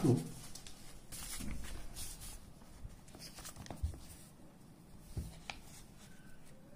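Quiet handling of a paper textbook: soft rustling of the pages as the book is moved and held flat, with two light knocks about four and five seconds in.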